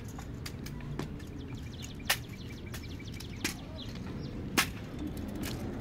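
Hushed outdoor ambience with a low steady rumble and a handful of sharp taps, the loudest about two seconds and four and a half seconds in: a cadet's hands slapping a drill rifle as he brings it down from the shoulder during ceremonial rifle drill.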